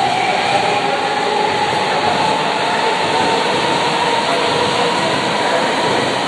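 Keisei AE-series Skyliner electric train running past as it departs, with loud steady rolling noise from the wheels on the rails and a slowly rising whine as it picks up speed.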